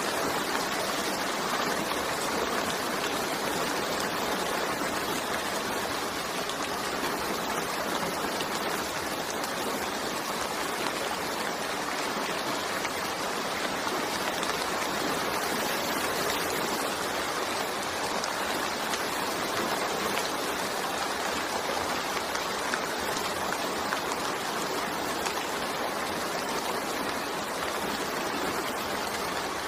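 Steady rain falling, an even, unbroken hiss that holds at one level throughout.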